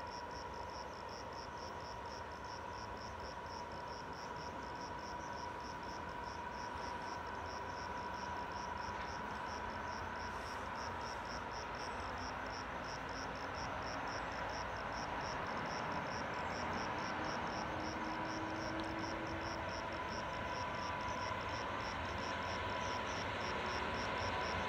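MÁV class 460 (V46 'Szöcske') electric shunting locomotive creeping closer with its coaches: a steady electric hum with a faint whine, slowly growing louder as it approaches. Through it runs a steady high chirping, pulsing about three times a second.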